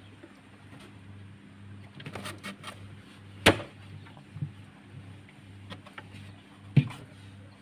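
Handling clatter: scattered clicks and rustles, with two sharp knocks about three and a half and about seven seconds in, over a steady low hum.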